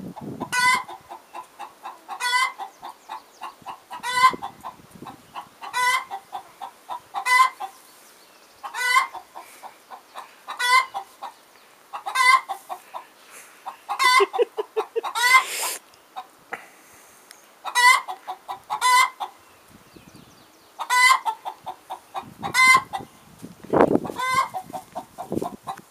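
A Rhode Island Red hen calling over and over: each call is a quick run of clucks that ends in a louder, drawn-out squawk, repeated about every one and a half to two seconds. Near the end there is a brief low knock.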